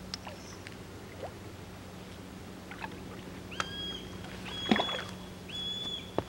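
Electronic carp bite alarm sounding a run of long, even beeps about once a second, starting a little past halfway, as line is pulled off the rod: a take from a carp. A few knocks and clicks come with it, the loudest about halfway through.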